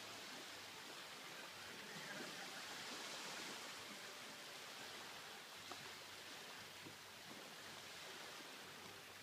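Faint, steady wash of small waves lapping on a pebbly beach, a little louder a few seconds in.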